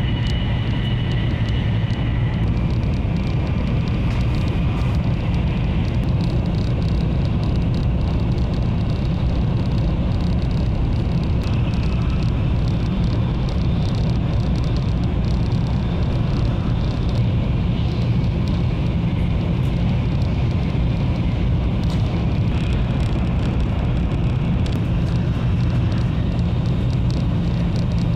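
Taiwan High Speed Rail 700T train running at speed, heard inside the passenger cabin as a steady low rumble. A thin high whine near the start fades out after about two seconds.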